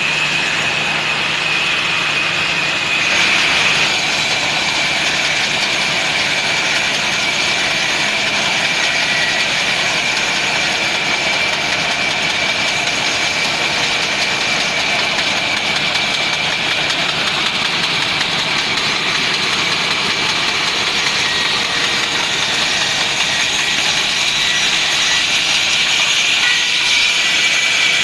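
Sawmill machine running steadily: a continuous loud mechanical noise with a steady high whine through it.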